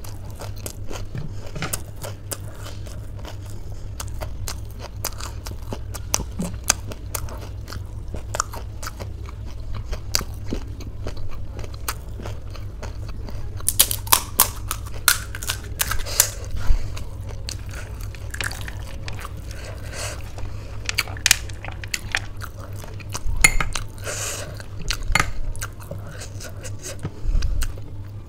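Crisp panipuri (puchka) shells crackling and crunching as fingers break them open and fill them, close to the microphone. The sharp crackles are irregular and come thickest about halfway through and again near the end.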